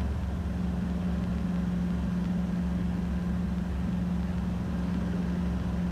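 Robinson R22 helicopter's engine and rotor running with a steady hum as it hovers slowly backward.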